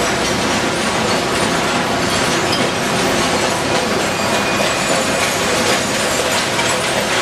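Steady loud din of a single-stream recycling sorting line: conveyor belts and sorting machinery running, with a continuous rattle and clatter of recyclables.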